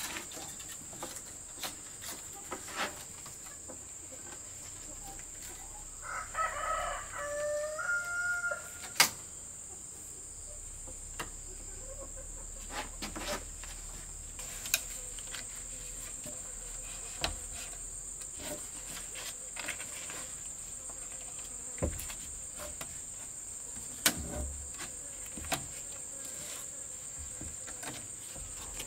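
A rooster crows once, about six seconds in, over a steady high insect drone. Sharp knocks and taps of bamboo slats being handled and fixed to a bamboo wall come now and then.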